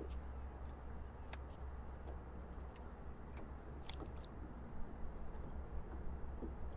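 Fishing reel being cranked to retrieve a deep-diving crankbait: a soft grinding with a few scattered light clicks, a small cluster about four seconds in, over a steady low rumble.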